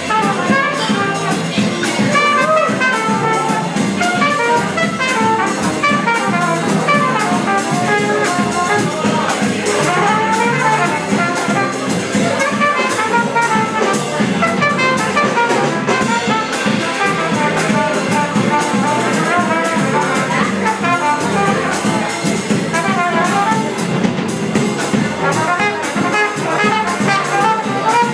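Small live jazz band playing, the trumpet taking a solo over upright bass and a drum kit with a steady cymbal beat.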